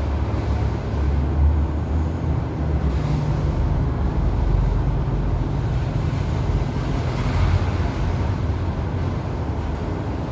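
Steady low-pitched background noise, strongest in the bass and even throughout, with no sudden sounds.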